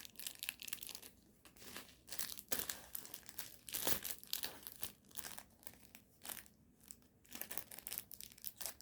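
Packaging crinkling and rustling in irregular bursts as a small gift is unwrapped by hand.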